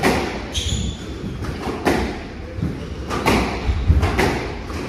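Squash rally: the ball cracking off racquets and the walls, a sharp hit every second or so, with players' footfalls thudding on the court floor.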